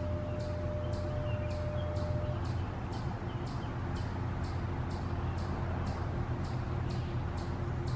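Failed ASC E-Class EC4 electronic siren: instead of a siren tone, its horn speakers give only a regular faint ticking, about two clicks a second, over a steady low hum.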